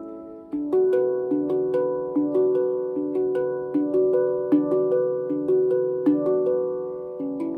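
An Ember Steel handpan in D Ashakiran tuning (15+1 notes) played by hand: a flowing melody of struck, ringing steel notes, about two or three a second, each fading as the next one sounds. The melody resumes after a brief lull about half a second in.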